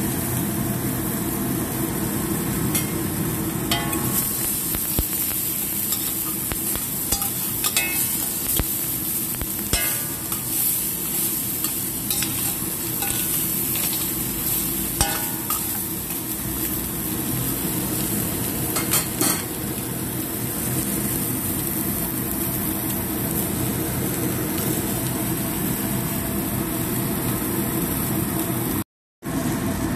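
Crab pieces and green onion frying in oil in a stainless steel wok: a steady sizzle with scattered light clicks and scrapes. The sound cuts out briefly near the end.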